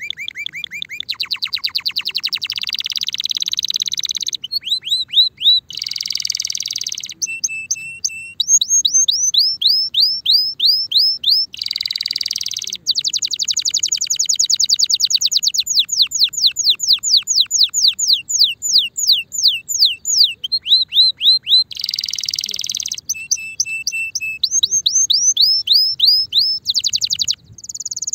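Male Timbrado canary in breeding condition singing a long, unbroken song: fast trills of quickly repeated, falling whistle-like notes, broken every few seconds by short harsh, buzzy phrases.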